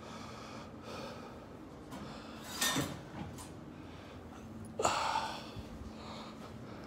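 A person's breath: two short, noisy sniffs or exhalations a couple of seconds apart, over a faint steady hum.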